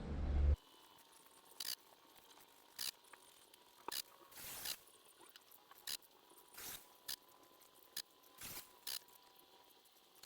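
A loud low rumble cuts off suddenly about half a second in, then faint scattered soft clicks and short rustles, about one a second.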